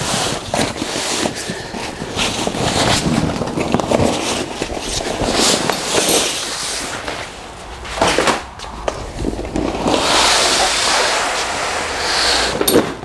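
Rustling, crinkling and scraping of a deflated inflatable dinghy's rubberized fabric and its nylon carry bag as the boat is pulled out and dragged open across a concrete floor, with a short high squeak near the end.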